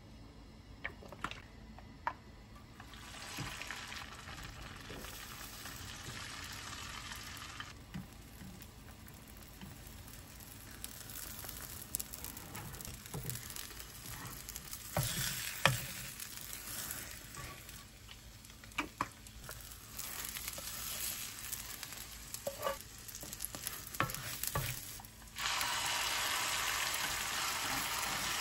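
Food frying and sizzling in a pan in several spells, with clicks and knocks of a cooking utensil against the pan. The loudest, steadiest sizzle starts about 25 seconds in.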